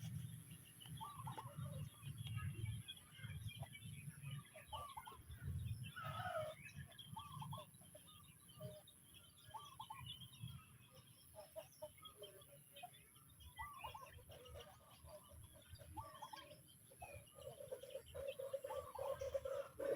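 Backyard chickens clucking and chirping softly as they feed, with many short, scattered calls. A longer held call starts near the end.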